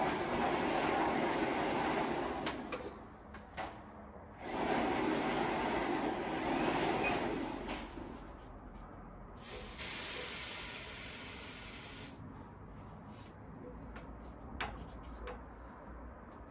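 Pressurised gas hissing in three bursts: two long rushing bursts, then a sharper, higher hiss about ten seconds in that cuts off suddenly. A few faint clicks fall between the bursts.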